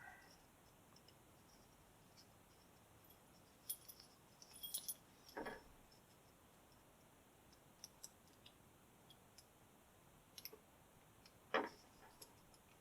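Faint, sparse metallic clicks and scrapes of a lock pick and tension wrench working the pins of a Master Lock No. 3 padlock, with two brief louder handling sounds, about five seconds in and near the end.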